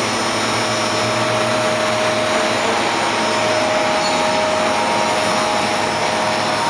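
BHS RP32 DSU32 gearbox running on a test bench: a steady, loud machinery noise with a faint steady whine over it.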